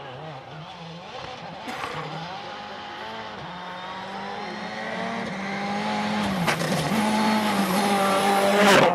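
Rally car engine coming closer at speed, revving up and dropping back through several gear changes, growing steadily louder until it passes close just before the end.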